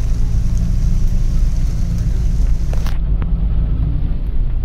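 A vehicle's engine running, a steady low rumble.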